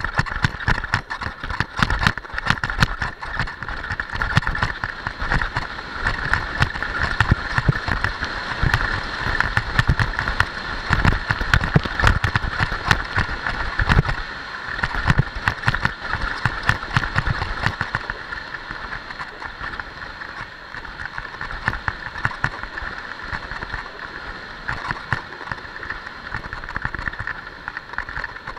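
Skis scraping and chattering over hard-packed snow during a fast downhill run, with irregular low rumbling from wind buffeting the camera's microphone.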